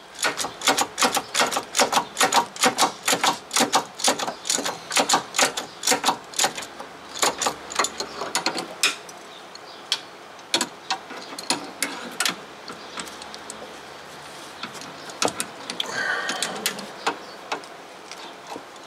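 Hand ratchet and wrench clicking in quick, even strokes for about the first half, then in slower, scattered clicks, while the 17 mm caliper bracket bolts are being loosened.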